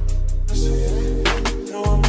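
Background hip hop / R&B music with deep sustained bass notes and a regular drum beat.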